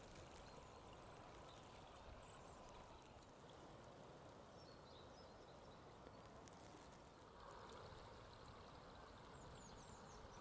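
Near silence: a faint steady rush of the river flowing past the bank, with a few faint high chirps.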